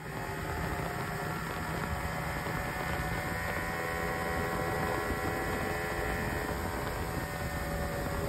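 Yamaha 200 HPDI two-stroke V6 outboard running steadily under load with the boat on plane: a continuous drone with several steady tones and a higher whine, over the rush of the wake.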